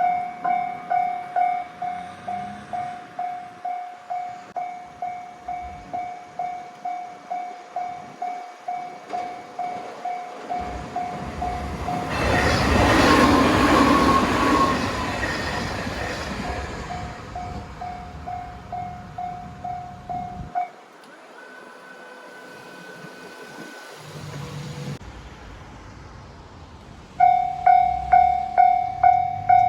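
Japanese railway level-crossing alarm ringing its repeating electronic 'kan-kan' bell while a train passes over the crossing, loudest a little before halfway. The bell stops about two-thirds of the way in, then starts ringing again near the end.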